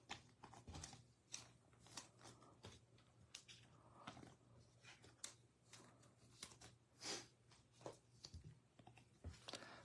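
Faint rustling and light irregular clicks of a stack of football trading cards being slid and flicked through by hand, over a faint low hum.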